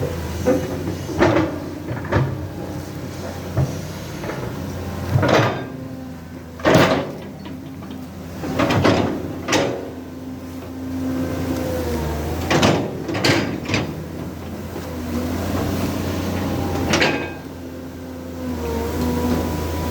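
Old dump truck running with a steady engine hum that shifts slightly in pitch, broken by about a dozen sharp clunks and knocks.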